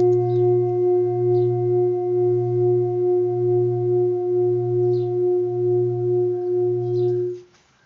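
A hand-made seven-metal Himalayan singing bowl sounding one steady note with a slow, regular wavering pulse, then stopping abruptly near the end.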